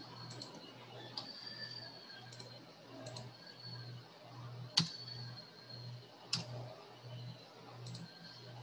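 Computer mouse clicks: scattered faint ones and two sharper clicks about five and six and a half seconds in, over a low hum that pulses about twice a second.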